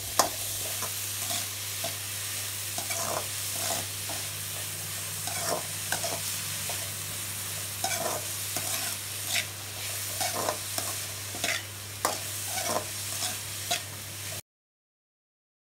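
Chopped onions and garlic sizzling in hot oil in a hammered metal kadai while a steel ladle stirs them, scraping and knocking against the pan about once a second. The sound cuts off suddenly near the end.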